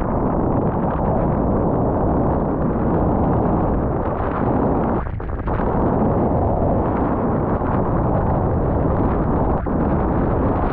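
Heavy wind buffeting the camera microphone while wing foiling, a loud continuous low rumble that dips briefly about five seconds in and again near the end.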